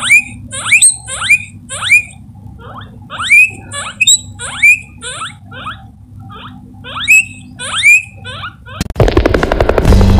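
A guinea pig wheeking: about a dozen short, high-pitched rising squeals in quick clusters. Music starts near the end.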